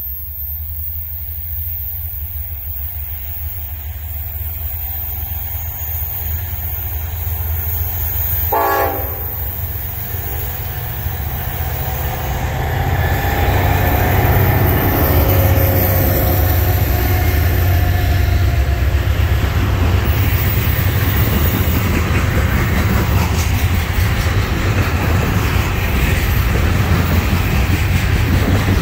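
A Norfolk Southern freight train led by two diesel-electric locomotives, an SD70ACe in front, approaches with a low engine rumble that grows steadily louder, with a short horn blast about nine seconds in. The locomotives pass at their loudest about fourteen seconds in, and then the long line of loaded trash cars rolls by with steady wheel clatter on the rails.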